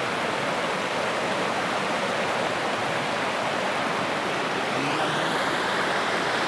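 A fast river rushing over rocks, a steady even rush of water with no breaks.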